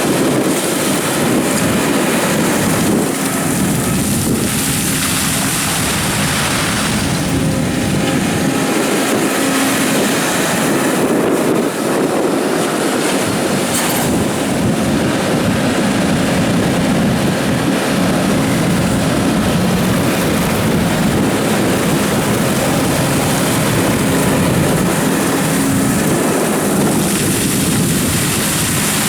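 Doosan DX300 tracked excavator's diesel engine running under load while digging gravel, its note shifting as the work goes on, over a steady hiss.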